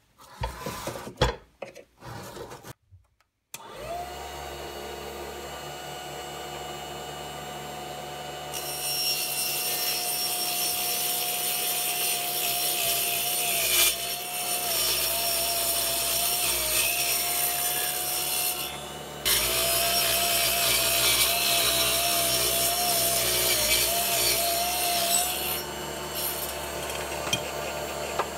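Small benchtop mini table saw: a few handling clicks, then its motor starts with a steady whine. It cuts a wooden board in two long stretches with a short break between, the whine wavering and dipping under load, then runs on more quietly near the end.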